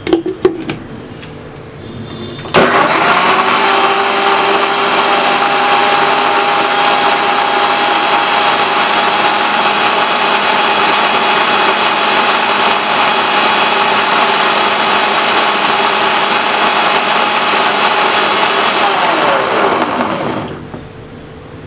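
A few clicks, then an electric blender starts abruptly about two and a half seconds in and runs with a steady whine, pureeing strawberries with milk. Near the end it is switched off and its pitch falls as it spins down.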